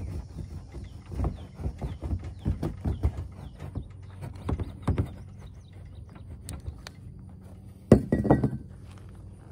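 Steel pipe rolled and pressed hard over a freshly welded plastic patch on a kayak hull: a fast run of knocks and scrapes that eases off about halfway. Near the end comes one sharp knock as the pipe is set down on the hull.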